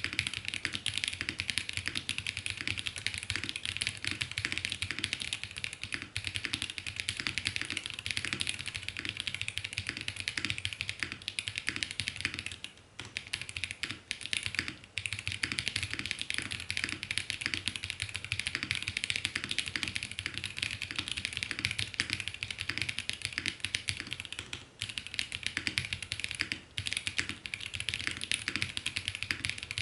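Fast, continuous typing on a QK65 mechanical keyboard with lubed Yok Polar Panda tactile switches in a POM plate, with dense overlapping keystrokes and a few brief pauses.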